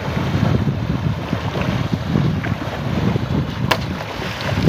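Heavy splashing and churning of shallow water as several men wade and thrash through it with their hands and bamboo sticks. There is a single sharp click about three-quarters of the way through.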